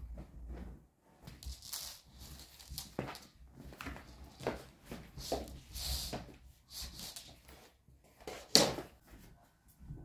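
Bedding fabric rustling and swishing in irregular bursts as a quilt and bedspread are shaken out and spread over a bed, with the loudest swish near the end.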